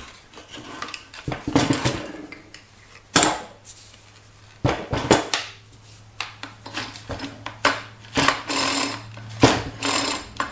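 Recoil starter of a Ryobi 825R four-stroke string trimmer engine pulled over by hand several times, each pull a short rasping whirr as the engine turns against its compression, a sign that the valves are sealing.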